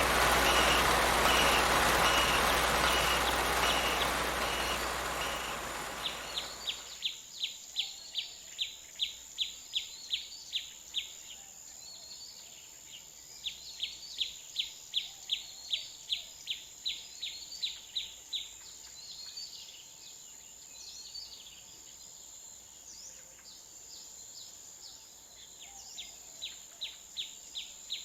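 A heavy vehicle runs with its reversing alarm beeping about twice a second, then fades out over the first six seconds. After that come runs of short, high chirps, about three a second, each run lasting several seconds, over a steady high tone.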